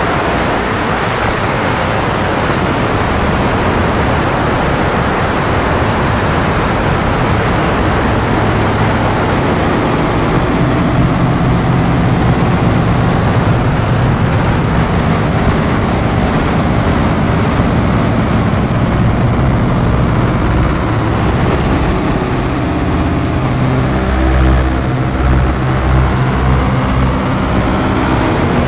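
Live electronic noise music: a loud, dense, steady wall of roaring noise. Low tones rise under it partway through, and a few slow low pulses come in near the end.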